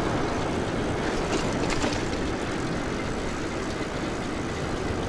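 Steady rush of wind buffeting the microphone, with road and tyre noise, while riding a 2000 W e-bike at speed.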